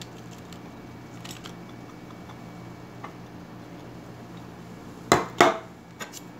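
A china plate clattering twice, sharply, about five seconds in, as it is knocked against hard surfaces and set down on a stainless steel table, with a smaller knock just after. Fainter knocks earlier come from chopped tomatoes and cucumber being tipped off the plate into the salad bowl.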